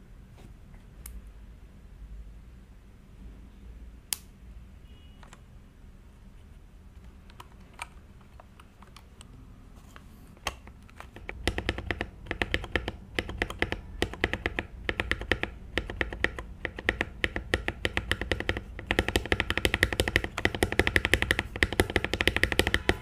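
Faint, scattered small clicks at first, then about halfway in rapid typing starts on a KeyCool KC84 mechanical keyboard, with spacebar presses, its stabilizers freshly lubed and tuned. The typing grows faster and louder in the last few seconds.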